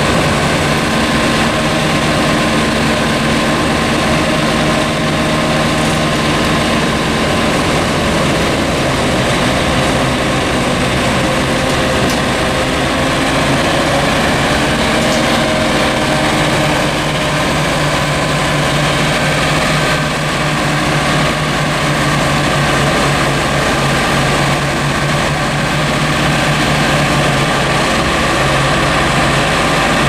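Tractor engine running steadily at working speed, driving a silo blower that is taking chopped haylage from a self-unloading forage wagon.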